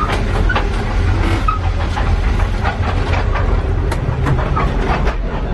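Inside a moving passenger train carriage on the Indian Pacific: a steady low rumble of wheels on the rails, with frequent clicks and rattles of the car's fittings on top.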